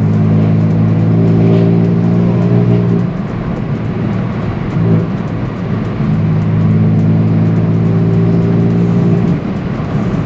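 BMW M4 F82's S55 twin-turbo straight-six with a REMUS exhaust, heard from inside the cabin while driving, giving a steady drone. The drone drops back to a softer, rougher sound about three seconds in and returns steadily about six seconds in.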